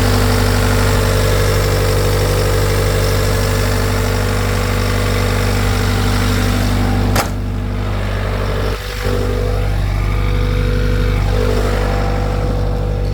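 Bobcat T75 track loader's diesel engine running steadily, with a sharp click about seven seconds in.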